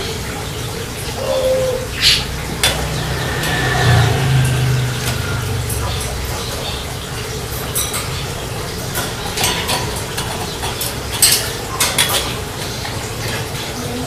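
Scattered light clicks and clinks over a steady low hum.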